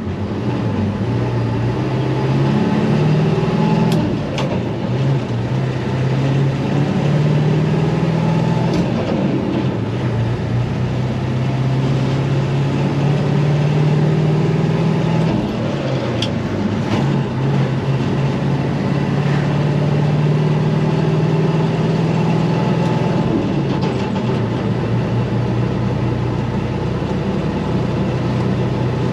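International 4600 dump truck's 7.3 IDI non-turbo V8 diesel running under a load of about 8 tons while driving on the road. The engine note drops and picks up again a few times.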